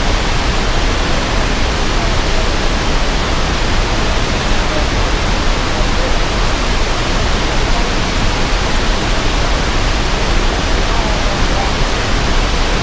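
Water released from a dam, rushing and pouring in a loud, steady, unbroken torrent.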